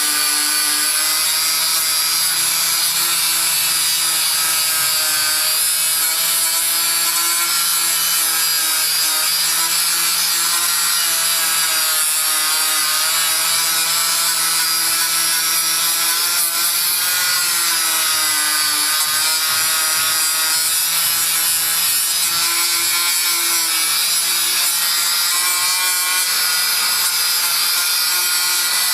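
Handheld electric power tool with an abrasive attachment running against an engine's metal casing to polish it. Its motor whine wavers, dipping in pitch and recovering several times as it is pressed in and eased off.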